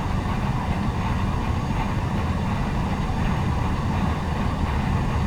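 Steady low rumble of airflow and engine noise heard inside the cockpit of an Embraer 170 airliner on final approach.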